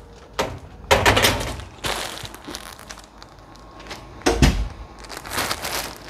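Handling sounds in a home: a few short knocks and rustles, with a heavy thud a little after four seconds, as a door is worked and a just-delivered parcel is handled.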